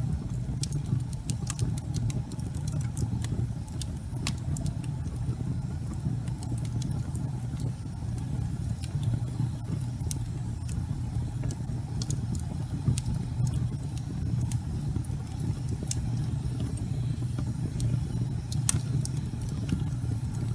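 Wood fire crackling in a fireplace: burning logs give irregular sharp pops and snaps, a few louder than the rest, over a steady low rumble of the flames.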